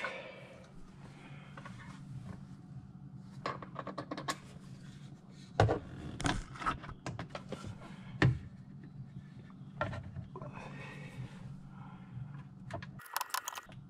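Scattered clicks, taps and light scrapes of plastic and metal parts being handled as a UTV rear-view mirror is threaded onto its mount, over a steady low hum.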